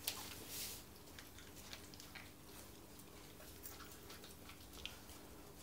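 Five-week-old puppies eating dry kibble from stainless steel bowls: faint, scattered clicks and crunches of kibble and teeth against the metal.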